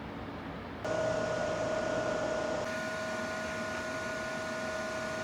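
A steady machine hum with an even, high whine starts suddenly about a second in and carries on unchanged.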